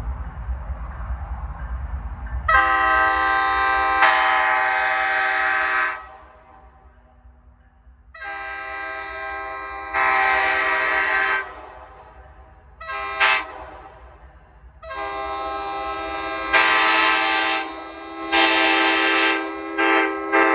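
Nathan K5LA five-chime locomotive air horn, freshly rebuilt with new diaphragms, sounding its steady multi-note chord in several blasts: two long ones, a short toot, then a run of blasts near the end. Some blasts swell louder partway through.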